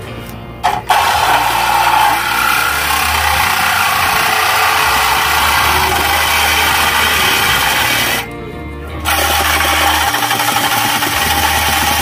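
Cordless reciprocating saw cutting through a car's steel exhaust pipe to remove the catalytic converter, starting about a second in and running steadily, stopping briefly near eight seconds and starting again. Music plays underneath.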